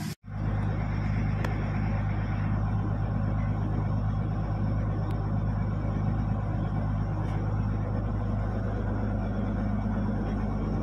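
Houseboat engine running steadily, a low, even drone.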